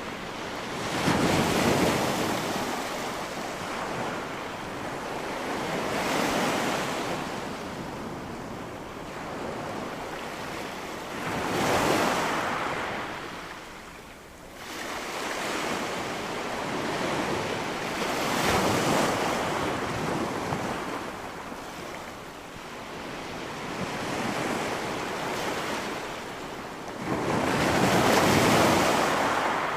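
Sea surf on a beach recorded close: waves breaking and washing up the shore, the rush of water swelling and falling in repeated surges every several seconds.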